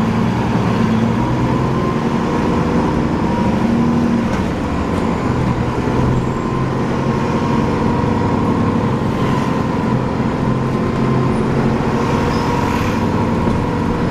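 Alexander Dennis Enviro 400 double-decker bus running, heard from on board: a steady drivetrain drone with a thin, high whirring tone held over it throughout.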